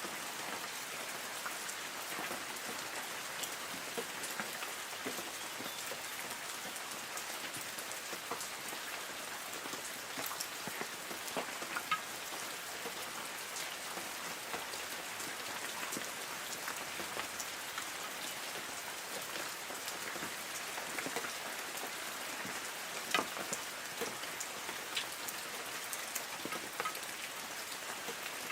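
Light rain falling on forest trees: a steady hiss of rain with many separate drops pattering on leaves, and now and then a louder single drop.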